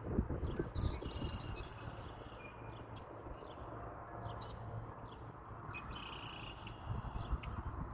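Birds chirping and calling: many short chirps and brief held notes, over a steady low rumble.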